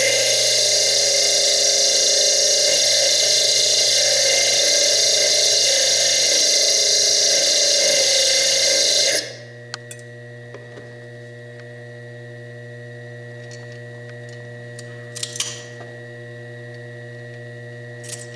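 A small diamond slitting disc on a Foredom bench lathe cutting into fire agate, a loud, steady, hissing grind that stops suddenly about nine seconds in. A steady hum carries on afterwards, with a few light clicks near the end.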